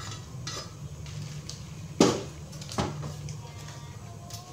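Kitchenware knocking sharply twice, about two seconds in and again just under a second later, against a stone-coated wok as vegetables are tipped into the soup and pushed in with a slotted spatula, over a steady low hum.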